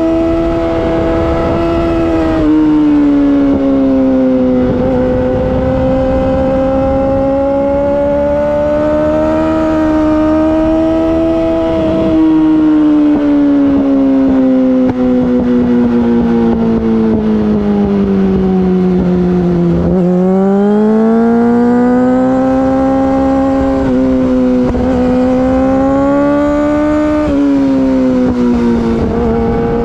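Yamaha R6 inline-four sportbike engine through an Akrapovic Evolution Racing exhaust, running hard under way. The pitch rises and falls with the throttle. It sinks lowest about two-thirds of the way in, then climbs again, with brief breaks at a few throttle or gear changes.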